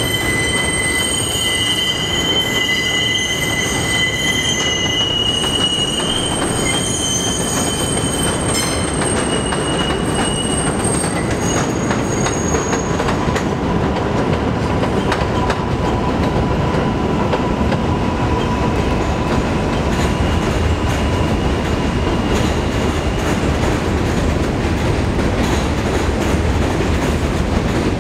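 New York City subway trains running on curved elevated flyover track: the wheels squeal steadily on the curve through the first third, with several high tones held together. The squeal then fades into a steady rumble and rail clatter, with a fainter squeal in the middle.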